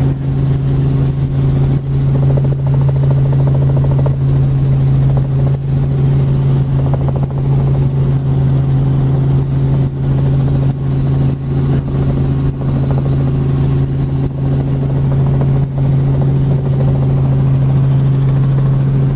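Robinson R44 helicopter in flight heard from inside the cabin: a steady low drone of rotor and piston engine, with several steady pitches over constant noise and frequent brief dips in loudness.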